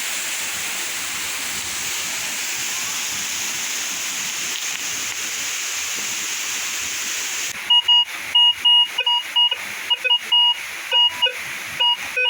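Steady rush of a waterfall. About three quarters of the way in it gives way to a metal detector's short, loud target beeps, uneven and roughly three a second, signalling metal under the coil.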